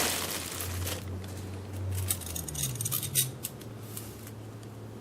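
Light clinks and rattles of the chandelier's metal extension rods being handled, a few scattered clicks over a faint low hum.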